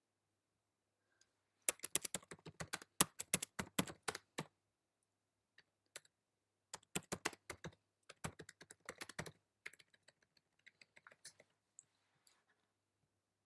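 Typing on a computer keyboard: a dense run of key clicks lasting about three seconds, then two shorter runs and scattered single taps that thin out toward the end.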